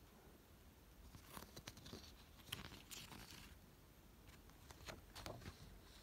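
Large printed paper sheets rustling and crackling as they are handled and leafed through, in two spells of short crisp crackles.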